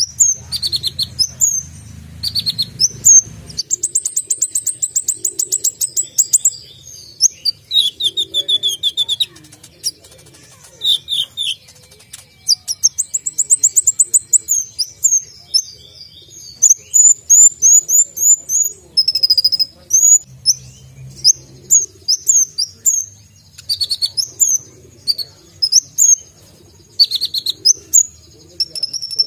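Male Van Hasselt's sunbird (kolibri ninja) singing a long, sharp, high-pitched song: quick chirps broken by fast trills and rapid runs of repeated notes.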